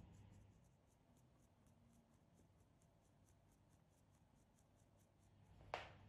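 Faint, evenly repeated scratching of cocoa and flour being shaken through a fine metal mesh sieve, with one sharp tap near the end.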